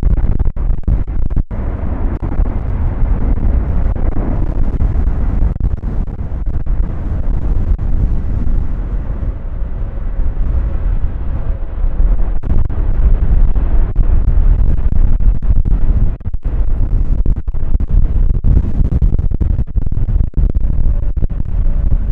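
Boeing 767-300 twin jet engines at takeoff thrust: a loud, deep rumble with no clear tone, its higher part thinning after about nine seconds.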